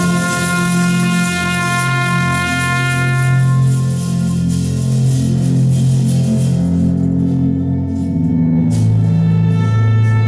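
Live chamber ensemble music: two violins bowing long held notes with a trumpet, over a low sustained note. The trumpet drops out around the middle and comes back in near the end, as a new low note enters.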